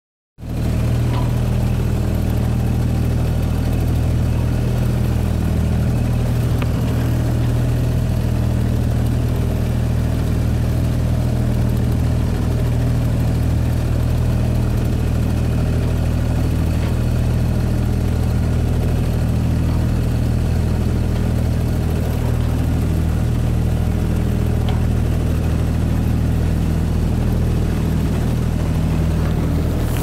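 Motorboat engine running at a steady, unchanging speed: a loud, even low hum.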